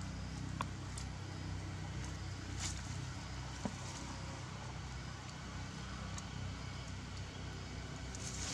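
Steady low hum of distant motor traffic, with a few faint, sharp clicks and rustles scattered through it.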